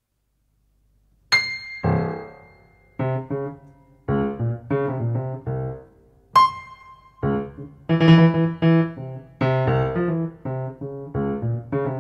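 Solo jazz piano introduction: after about a second of silence a bright high note rings out, followed by separate chords, a second high note about six seconds in, and busier chords from about seven seconds on.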